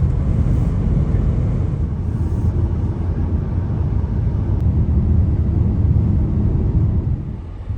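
Steady low rumble of a car driving along, road and engine noise, which fades near the end.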